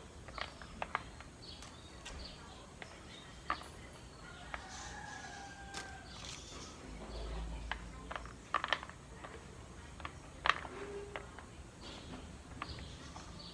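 Irregular small clicks and taps of fresh black pepper berries being picked over by hand in a plastic bowl and dropped onto a bamboo tray, the sharpest clicks late on.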